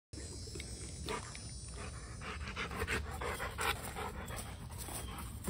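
A dog panting in quick, short breaths over a steady low hum.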